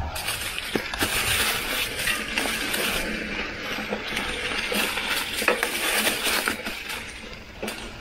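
Mountain bike tyres rolling over a trail thick with dry fallen leaves: a dense crackling rustle with scattered small clicks and knocks.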